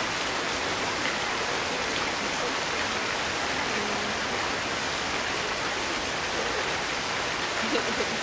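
Steady rushing of running water, an even hiss that does not change.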